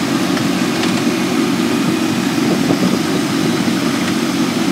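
Casey Jr. Circus Train's miniature locomotive and cars running steadily along the track: a constant low drone, heard from the seat just behind the engine.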